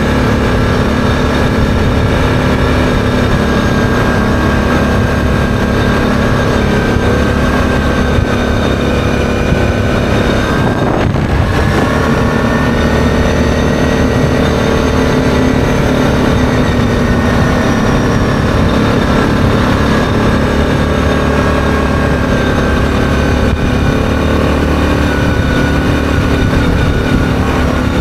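ATV engine running steadily under way at cruising speed, heard from the machine itself. About eleven seconds in the note briefly breaks, then comes back a little higher and slowly eases down again.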